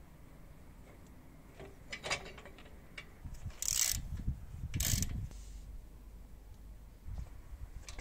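Socket ratchet clicking in two short strokes, about a second apart, tightening the top mounting bolt of a motorcycle's chrome rear shock absorber. A few lighter clicks and knocks come before them.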